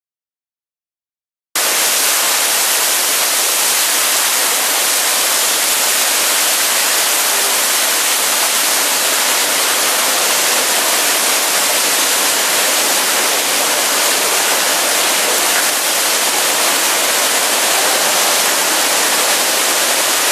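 Niagara Falls' falling water: a loud, steady, even rush that cuts in abruptly after about a second and a half of silence.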